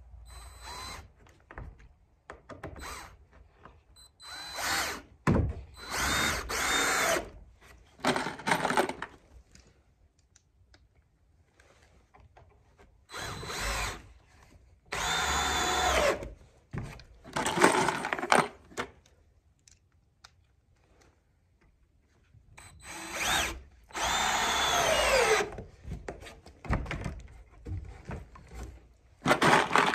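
DeWalt cordless drill/driver running in repeated short bursts of one to two seconds with pauses between, driving screws through the studs into a new pressure-treated 6x6 sill; on some runs the motor drops in pitch as the screw seats.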